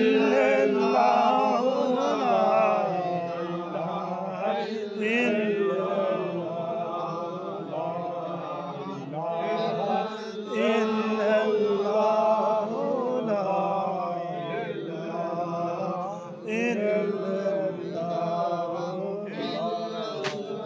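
Male voice chanting Islamic dhikr, the remembrance of Allah, in long melodic phrases with brief pauses between them.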